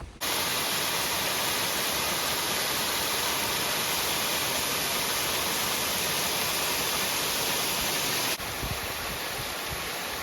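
Steady rush of water from a creek cascade, with no change in pitch; it drops abruptly to a lower level about eight seconds in.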